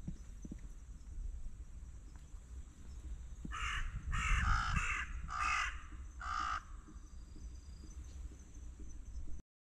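A crow cawing: a quick run of about six short calls spread over some three seconds, starting about a third of the way in.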